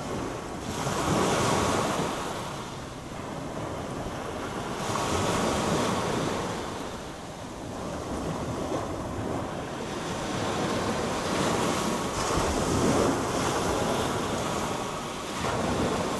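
Small waves breaking and washing up a shingle beach, the surf swelling and easing every few seconds, with wind buffeting the microphone.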